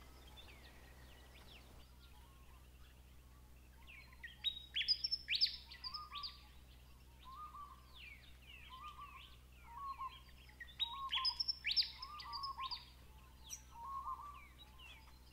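Several birds calling: a quiet stretch, then from about four seconds in many quick, high, falling chirps mixed with lower repeated notes, coming in irregular clusters.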